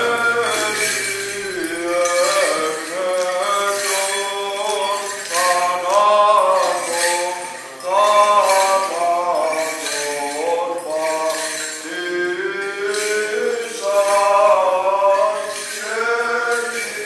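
A man's voice chanting a slow, ornamented Byzantine hymn in long held notes that glide between pitches. The small bells on a swinging censer jingle now and then.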